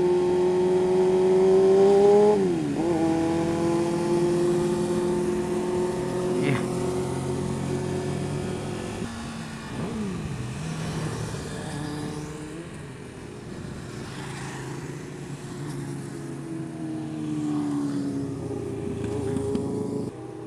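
Motorcycle engine running steadily at high revs. Its pitch climbs a little, then drops sharply about two seconds in, like an upshift, and holds steady before sinking slowly near the end as it slows.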